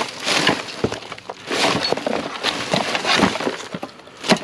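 Hard items clattering and clinking as a curbside junk pile is rummaged through by hand, with a sharp knock near the end.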